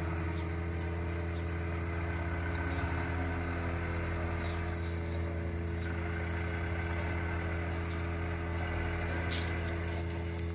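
Farm tractor engine running steadily under load, driving a forage harvester that cuts and chops standing corn for silage: a continuous, even drone.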